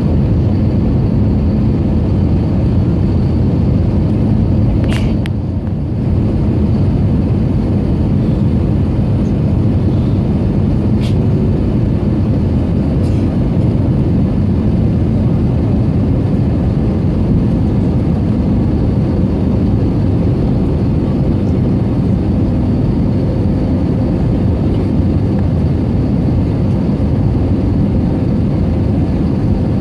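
Steady cabin noise of an Airbus A320neo in descent, heard from a window seat beside the engine: a constant drone of engine and rushing air. A couple of faint clicks and a brief slight dip in loudness come about five seconds in.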